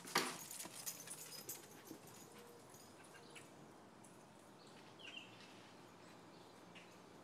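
Dogs scrambling out through a doorway: a sudden clatter just after the start, then about two seconds of fading clicks and scrapes. After that comes faint outdoor background, with a single short falling bird chirp about five seconds in.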